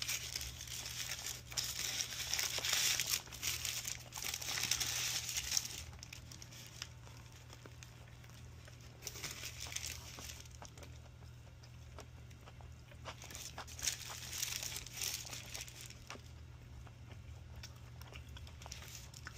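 Paper wrapper around a burrito crinkling and rustling in irregular bursts as it is handled and peeled back between bites.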